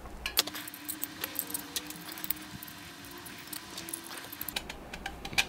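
Handling noise: a scatter of small clicks and taps as a hard plastic cap and the aluminium and copper parts of a spot-welder electrode holder are fitted together by hand.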